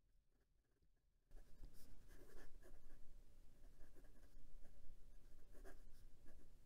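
Penbbs 456 fountain pen's stiff steel fine nib writing on notebook paper: a faint scratching that starts about a second in and rises and falls with each pen stroke.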